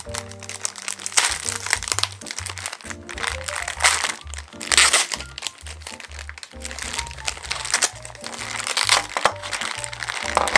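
Clear plastic packaging bags crinkling loudly as they are handled and pulled open, over background music with a stepping bass line.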